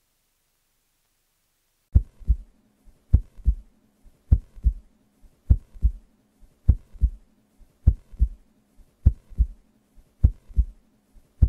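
Silence, then from about two seconds in, a steady beat of deep double thumps like a heartbeat, one pair about every 1.2 seconds with softer hits between.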